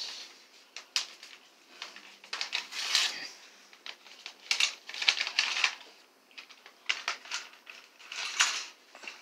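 Plastic and paper packaging crinkling and rustling as it is handled, in irregular bursts with a few light clicks and taps.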